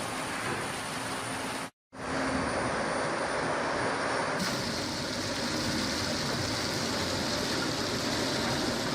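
Steady mechanical noise of sawmill machinery running, cut off by a brief dropout about two seconds in, then resuming.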